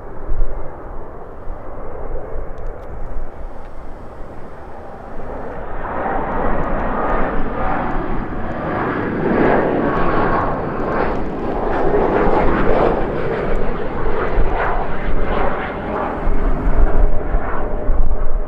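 Jet airliner's engines roaring as it passes close by, the roar swelling about six seconds in and staying loud to near the end, over strong gusting wind buffeting the microphone.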